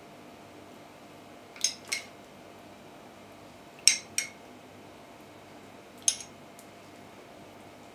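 A metal spoon clinking against the rim of a glass of juice as juice is spooned out: three pairs of quick clinks, about two seconds apart.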